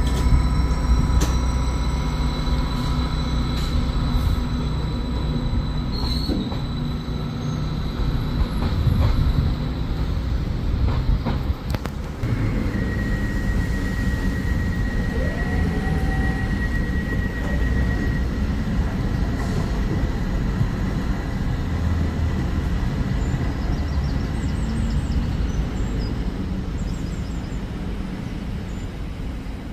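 Train moving through a station with a steady low rumble and high-pitched wheel squeal. One long squeal tone runs from about twelve to eighteen seconds in, and the sound slowly fades near the end.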